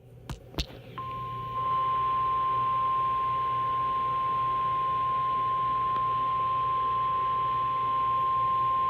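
NOAA Weather Radio 1050 Hz warning alarm tone: one long, steady, unbroken beep over a faint hum, the signal that a warning message follows, here a severe thunderstorm warning. Two short clicks come just before the tone starts, about a second in.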